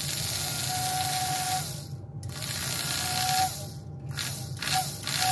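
Lionel 234W whistle tender's motor-driven whistle blowing in three blasts with brief breaks: mostly an airy rush with only a faint tone, over a steady hum. The whistle works but is weak, which the owner puts down to dirt and hair built up inside it.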